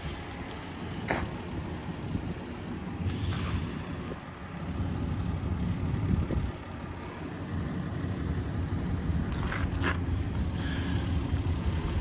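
Trommel running: a steady low mechanical rumble from the turning drum and its drive, with a few short sharp clicks or knocks scattered through it.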